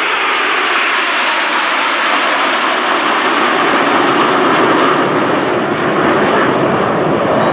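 Steady jet noise from a formation of Aermacchi MB-339 PAN jet trainers flying by, their single turbojets running.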